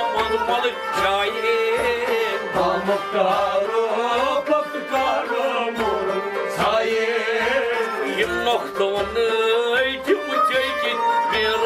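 Kashmiri Sufi folk music: a tumbaknari, a clay goblet drum, played by hand in a steady repeating rhythm, under a bowed sarangi melody and a man's singing voice.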